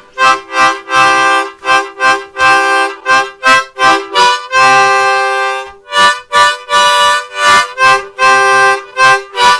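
A harmonica is played as a quick run of short chords, with a few longer held chords in between: someone practising the harmonica.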